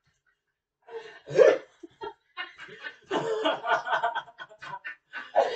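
A man laughing in bursts, starting about a second in.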